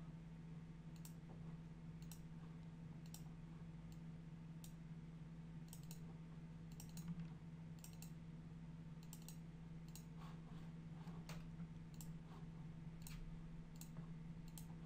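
Computer mouse clicking at irregular intervals, more than a dozen short sharp clicks, over a faint steady hum.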